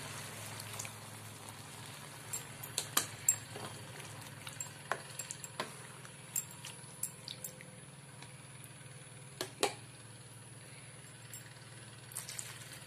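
A metal spoon clinks and scrapes now and then against a kadai as mutton curry is stirred after water has been added. The clicks are short and irregular, with a cluster about three seconds in and a pair near ten seconds. Under them runs a faint steady hiss from the simmering pan.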